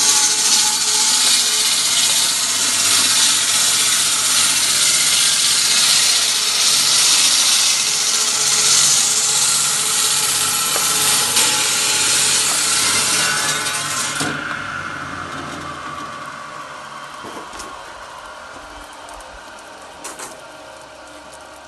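A 220 V electric stone-cutting saw cutting through a block of building stone with a loud, hissing grind. About two-thirds of the way through, the cutting noise stops suddenly and the blade runs on, fading steadily as it spins down, with a light knock near the end.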